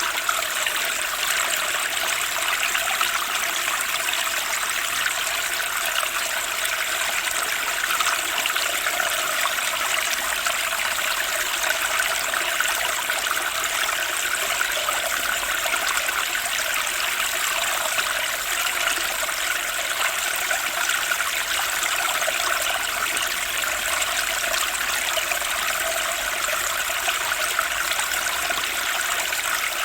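Turbulent spring stream, its water rushing in a steady, unbroken flow with no pauses or changes.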